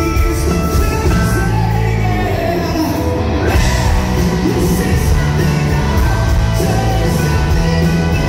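A live rock band playing, with electric guitars, keyboard and drums, and vocals over the music. The sound is loud and continuous, recorded from the audience in the hall.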